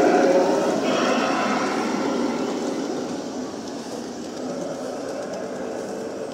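G-scale model train of Santa Fe diesel locomotives rolling past on garden railway track, its wheels and motors running as a steady rumble. The sound is loudest at first and fades over a few seconds as the train rounds the curve and moves away.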